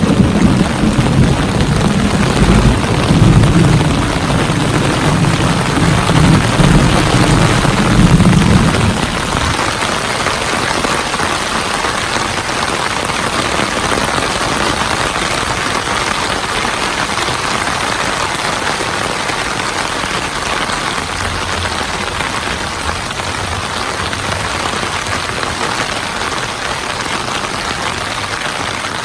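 Heavy rain pouring down in a steady hiss, with a long low roll of thunder that dies away about nine seconds in. The thunder is a distant rumble with no sharp crack of a nearby strike.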